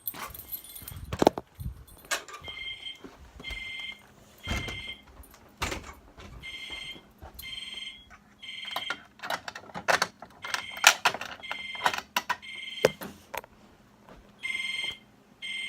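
Fire alarm notification appliance sounding a steady electronic tone in the temporal-three (code 3) evacuation pattern: three half-second beeps about a second apart, a pause, then three more, starting about two and a half seconds in. Sharp clicks and knocks come and go throughout.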